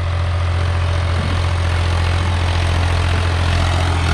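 Preet 955 tractor's diesel engine running steadily under load as it pulls a disc harrow through tilled soil, a constant low drone.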